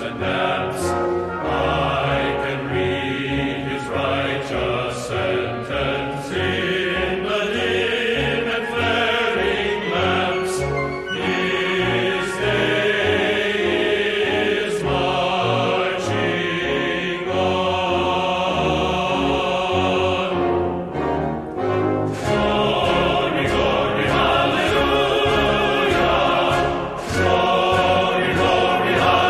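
Background music: choral singing over an orchestral backing, with a repeating beat.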